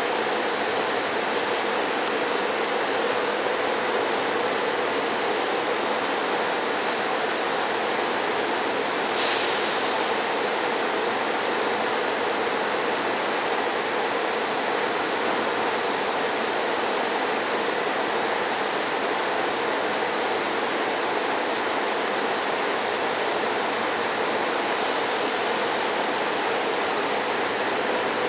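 SEPTA Silverliner IV electric commuter train standing at the platform, its onboard equipment running with a steady hum and faint high whine. A brief hiss comes about nine seconds in and another, longer one near the end.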